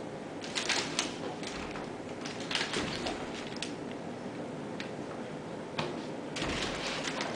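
Scattered light clicks and rustles of a kitten playing at a woven wicker basket on a wooden floor, with a longer rustle near the end as it pushes its head into the basket's opening.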